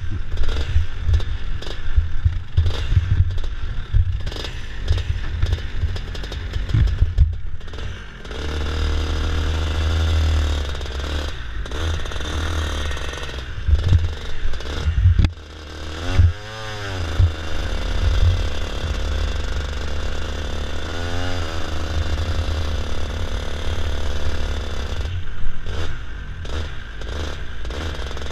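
Racing kart engine running, heard from an onboard camera on the kart as it pulls away and drives along, with heavy wind rumble on the microphone. The engine revs up and back down about halfway through, and again briefly a few seconds later.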